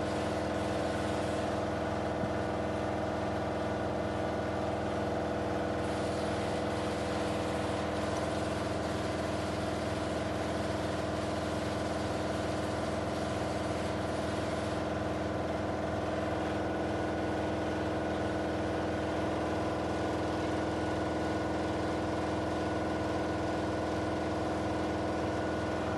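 Car engine idling steadily at a constant speed, listened to for a suspected knock.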